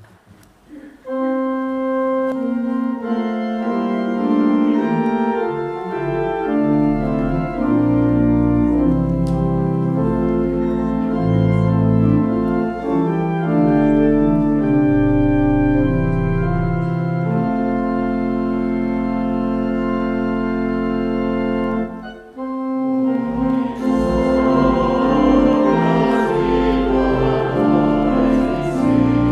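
Organ playing a hymn introduction in held chords. It breaks off briefly about 22 seconds in, then starts again with a congregation singing the hymn along with it.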